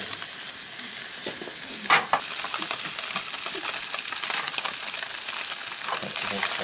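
Brain and mushrooms frying in oil in a nonstick pan: a steady sizzle with small crackles, and one sharp knock about two seconds in.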